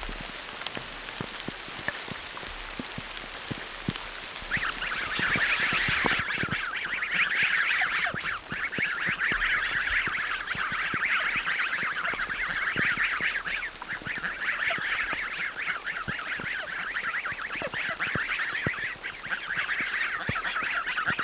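A dense, continuous chorus of many birds calling at once, beginning about four seconds in; before it, only a faint noisy background with scattered light knocks.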